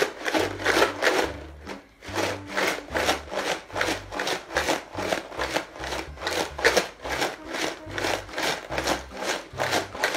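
Ice cubes and salt rattling inside a lidded plastic jar shaken hard by hand, about three shakes a second, with a short break about two seconds in. The ice and salt are chilling a bag of ice-cream mix inside the jar to freeze it into shaken ice cream.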